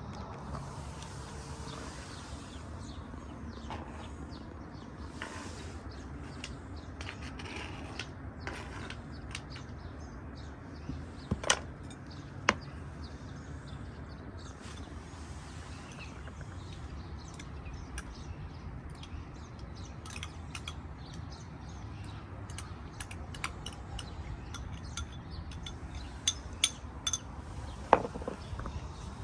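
Scattered light clicks and sharp clinks of cooking utensils and dishes, over a steady low background rumble. There are two louder clinks about halfway through and a cluster of them near the end.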